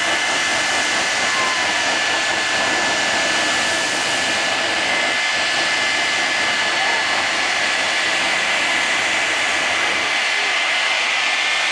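Jet engine of the Cannonball Express jet car running in place with the afterburner lit: a loud, steady roar with a high whine held through it.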